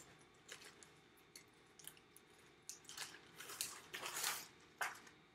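Faint rustling and crinkling of a thin clear plastic garment bag in short, scattered bursts as a shirt is pulled out of it, busiest a little past the middle.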